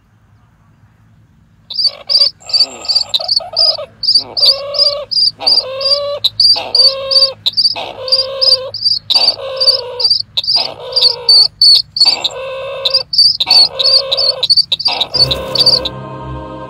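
Loud, rapid calls of the chàng nghịch bird start about two seconds in. A string of high piping notes, several a second, sits over lower wavering notes that come in pulses of under a second. Music comes in near the end.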